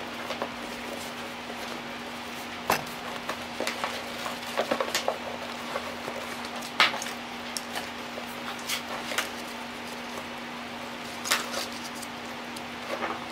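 Handling sounds of a leather-and-canvas bucket bag being turned and moved on a wooden workbench: scattered soft knocks and rustles a few seconds apart, over a steady low hum.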